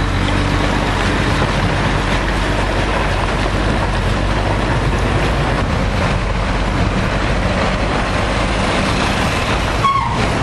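Heavy cargo truck engines running in slow border traffic: a steady low engine drone over road noise, with a short high tone near the end.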